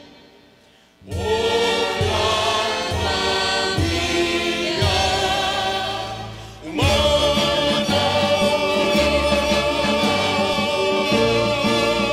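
Symphony orchestra with choir performing an anthem. After a pause of about a second the full ensemble comes in loudly with accented chords, then eases briefly and comes back in with a fresh loud entry about seven seconds in.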